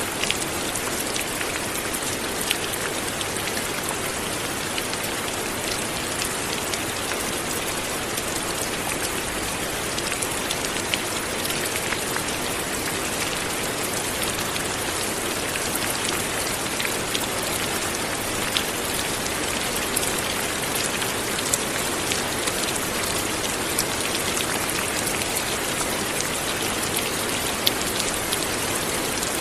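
Light, steady rain falling, an even patter with scattered louder drops ticking on a surface.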